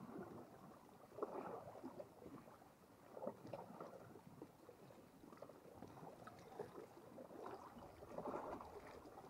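Faint water lapping and sloshing at the shore's edge, in irregular small splashes.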